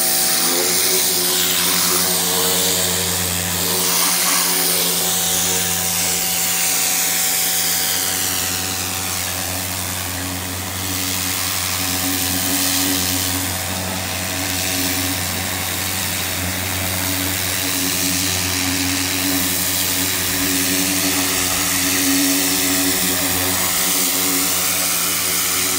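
Hart 2000 PSI electric pressure washer running steadily, its motor humming under the loud hiss of the water jet spraying onto a carpet.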